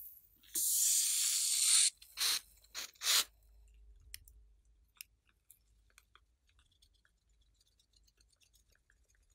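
Scissors cutting open a rubber balloon: a loud hiss lasting just over a second, then three sharp snips close together, then faint scattered ticks and crackles.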